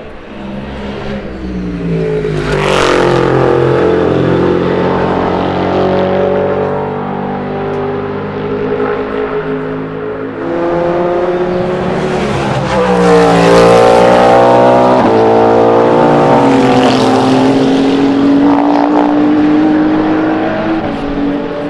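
Race cars passing at speed, engines revving up and down through gear changes. Several cars go by in turn, the loudest about 13 seconds in.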